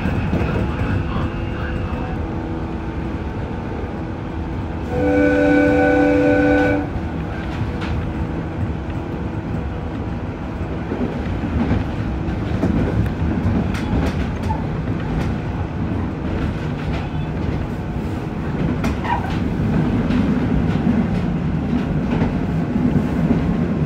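115-series electric train's horn sounds once, a single blast of almost two seconds about five seconds in, over the train's steady running rumble and rail clatter heard from inside the front of the car.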